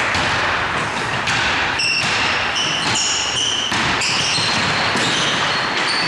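Basketball game sounds: the ball bouncing on the court with repeated thuds and sneakers squeaking in short high chirps, over a steady background din.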